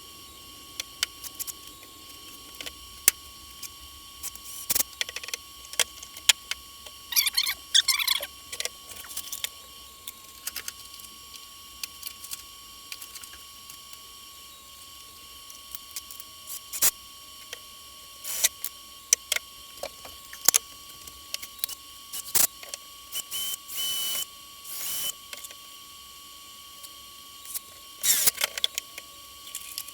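Scattered clicks, taps and knocks of PVC pipe pieces and tools being handled, with a few short squeaks, over a faint steady high-pitched whine.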